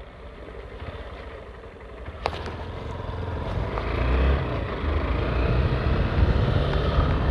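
Motorcycle running on the move, its engine rumble and wind noise growing steadily louder from about two seconds in as it picks up speed. A single sharp click about two seconds in.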